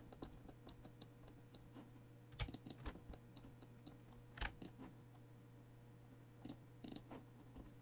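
Faint, scattered clicks of a computer mouse and keyboard, bunched in short clusters about two and a half seconds in, near four and a half seconds and around six and a half seconds, over near-silent room tone with a faint low hum.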